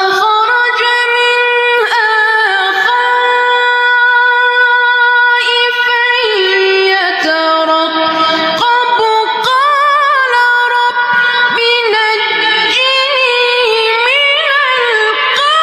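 A Quran reciter's voice chanting in a very high register: long held notes with rising turns and quick wavering ornaments, starting abruptly.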